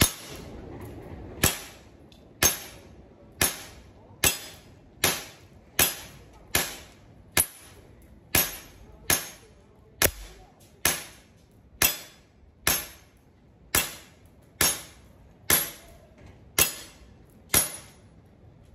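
CO2 gas airsoft pistol (GTP9) firing 6 mm BBs, about twenty sharp cracks one after another at roughly one a second, emptying the magazine, each followed by a brief ring-out.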